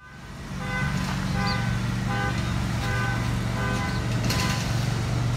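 A work vehicle's engine running steadily while a reversing beeper sounds about five times, one short beep every three-quarters of a second, starting about a second in. A brief metallic clatter comes near the end.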